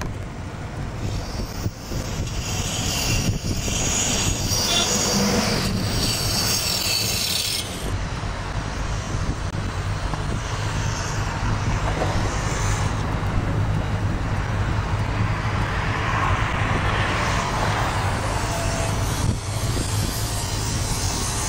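Steady low mechanical rumble with a hiss-like wash over it that comes and goes, swelling in the middle range about three quarters of the way through.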